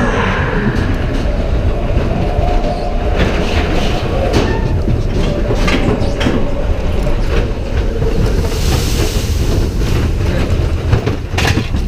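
Matterhorn Bobsleds coaster sled running along its steel track: a loud, steady rumble with scattered clacks and a drawn-out wheel squeal through the middle of the run.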